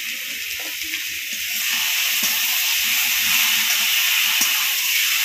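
Cubes of maan kachu (giant taro) sizzling in hot oil and spice paste in a kadai while being stirred with a metal spatula; the sizzle grows louder about a second and a half in.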